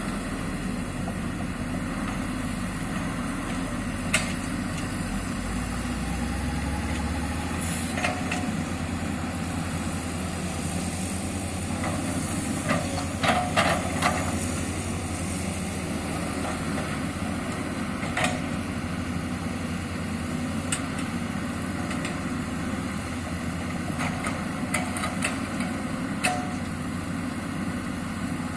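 Sany excavator's diesel engine running steadily, with sharp metallic knocks and clanks now and then, a cluster of them about halfway through.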